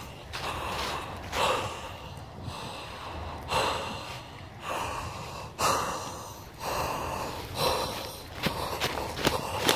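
Footsteps crunching and swishing through a thick layer of dry fallen leaves, about one step a second, every other step louder.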